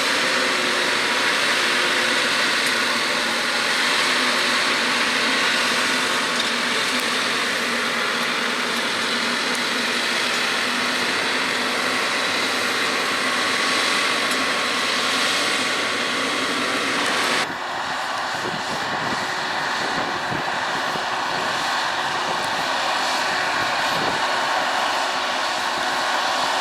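John Deere 6R 185 tractor engine running steadily under load while pulling a six-furrow reversible plough through tough ground. The sound changes abruptly about two-thirds of the way through, becoming duller.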